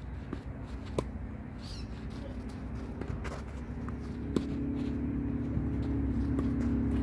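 Tennis racquets striking the ball in a rally: a sharp hit about a second in, a louder close one about four and a half seconds in, and a fainter one near the end. A low engine hum grows steadily louder through the second half, and a bird chirps twice in the first two seconds.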